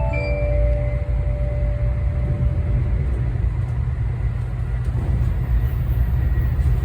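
Tokaido Shinkansen train running, heard inside the passenger car as a steady low rumble. The last note of the on-board announcement chime fades out over the first few seconds.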